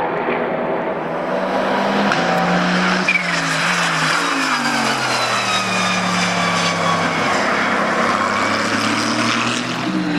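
Aston Martin Vantage GT3 AMR's Mercedes-AMG 4.0-litre twin-turbo V8 racing past at speed, with other race cars in the mix early on. The engine note steps in pitch through the gear changes, then its pitch falls as the car goes by close, easing off near the end.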